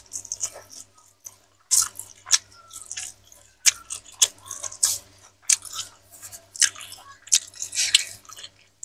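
Close-miked wet, sticky clicks and squelches, roughly one a second, from eating with the hands: fingers pulling apart boiled cassava leaves and pressing them into rice.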